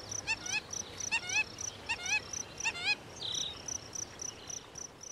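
Nature ambience: an insect chirping steadily at about three chirps a second, with a short, pitched, rising-and-falling call from another animal repeated four times in the first three seconds.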